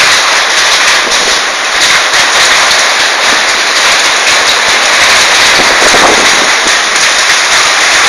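Heavy rain with hail falling hard, a loud, dense crackle of countless small impacts on the ground and nearby surfaces.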